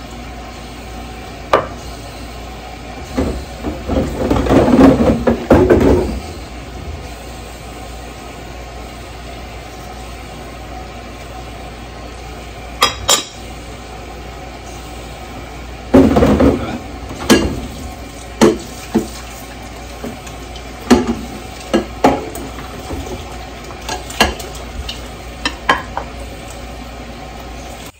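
Dishes being washed by hand: plates, pots and cutlery clinking and clattering against each other in scattered knocks, with a busier run of clatter about four to six seconds in, over a steady background hum.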